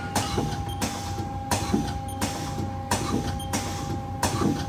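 Haas SL-10 CNC lathe's tool turret indexing station after station during a tool-change test, with a short rush and clunk about every 0.7 seconds over the machine's steady hum.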